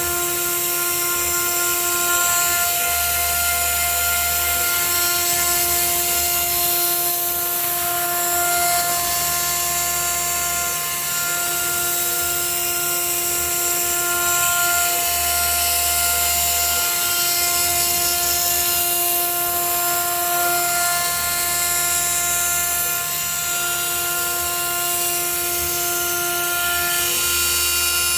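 CNC router spindle running at high speed with a steady whine and hiss as it cuts rubber sheet. A low hum from the machine comes and goes in spells of a second or two.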